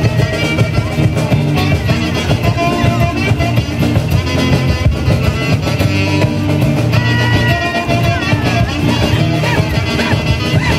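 Live huaylarsh music from a Peruvian folk band, with guitar and drum, playing a lively melody over a steady dance beat.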